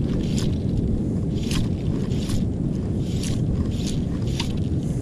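Wind rumbling on the microphone, with short high swishes recurring about once a second as fly line is pulled in by hand while a small jack is brought to the bank.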